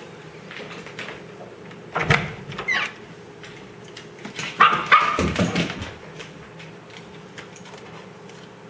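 Husky puppy barking and yipping in short bursts, a pair about two seconds in and a longer run around the middle: warning barks as it guards the closet where the dog food is kept.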